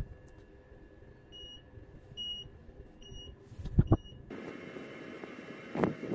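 Electronic buzzer of a homemade micro:bit countdown device giving four short high beeps, a little under a second apart, as its countdown runs. Near the end come a few loud thuds.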